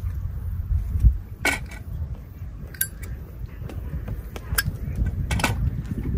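About four light clicks and clinks, spread a second or so apart, over a steady low rumble.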